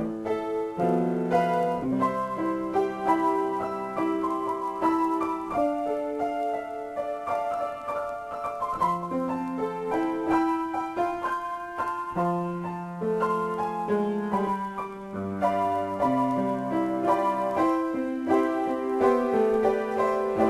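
Solo piano improvisation: sustained chords and melody notes, struck and left ringing, changing every second or so.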